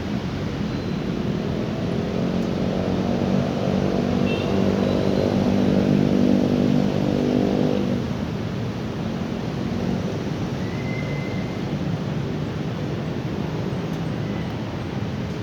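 An engine passes by, swelling from about two seconds in and fading away by about eight seconds, over a steady outdoor background hiss.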